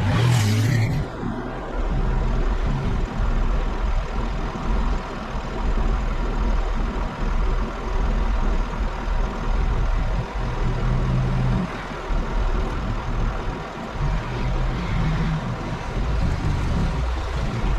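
Delivery truck's engine running steadily, heard from inside the cab, with a continuous low rumble.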